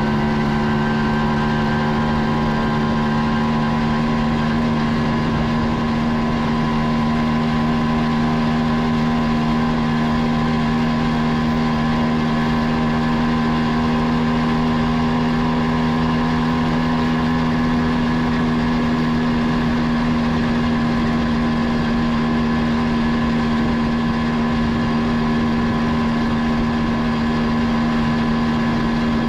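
Two-stroke single-cylinder engine of a 1989 Kawasaki B1 motorcycle running at a steady speed while riding, its note holding one pitch, over a hiss of road and wind noise.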